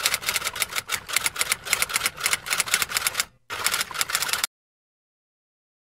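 Typing sound effect: a rapid run of keystroke clicks with a brief break a little past three seconds in, then a final short run that cuts off abruptly.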